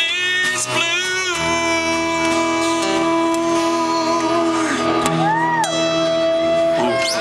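Live band playing the instrumental close of a slow blues song: a long held chord, with guitar notes bent up and back down from about five seconds in.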